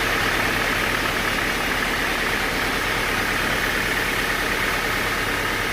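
An engine or heavy machine running steadily at an even pace.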